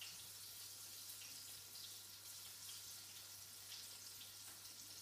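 Faint sizzle of flour-coated chicken breast pieces shallow-frying in oil in a pan: a steady hiss with small crackles, over a steady low hum.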